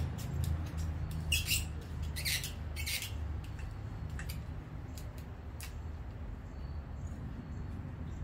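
Handlebar hand-control switch housing being handled and worked off a chrome handlebar: scattered light plastic clicks and three short scraping rustles in the first few seconds, over a steady low hum.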